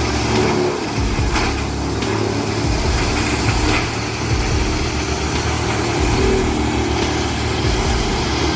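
Heavy machine's engine running steadily, its pitch drifting slightly, with a few light knocks.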